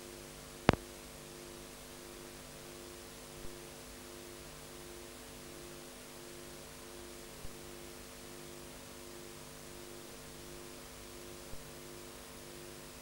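Steady electrical hum and hiss where the original soundtrack has dropped out. One sharp click comes just under a second in, and faint ticks follow about every four seconds.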